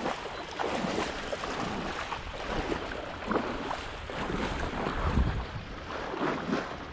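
Wading through shallow marsh water: uneven sloshing and splashing of legs moving through the water, with wind rumbling on the microphone.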